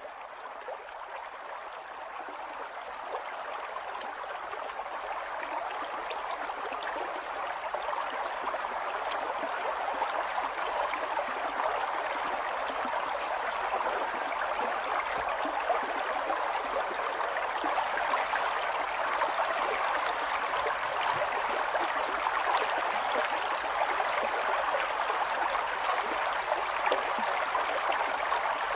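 Running water of a stream, a steady rushing and gurgling that fades in over the first several seconds.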